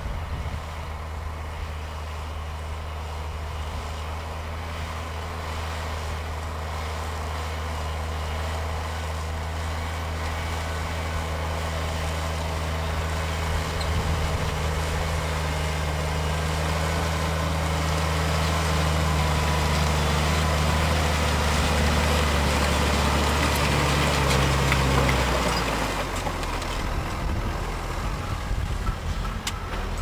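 New Holland T7060 tractor's six-cylinder diesel engine running steadily under ploughing load, growing louder as the tractor approaches. Its steady low note drops away about 26 seconds in as the tractor and plough pass by.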